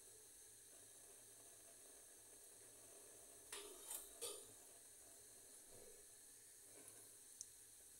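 Gas stove burner being lit with a match, catching with a quick cluster of soft puffs about three and a half seconds in, over a faint steady hiss; two faint ticks near the end.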